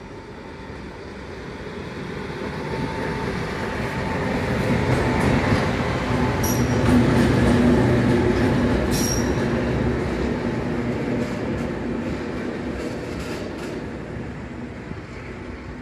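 Ludmilla-class diesel locomotive passing close by: its diesel engine swells to a peak about halfway through and fades as it moves away. Two short wheel squeals come near the middle.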